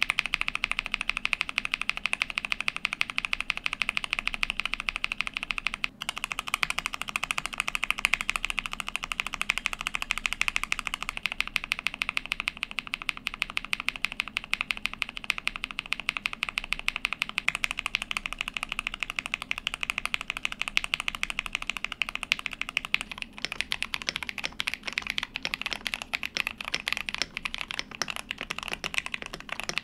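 Holy Panda tactile mechanical keyboard switches clacking as they are pressed rapidly over and over. There are short breaks about six seconds in and again a little past twenty seconds.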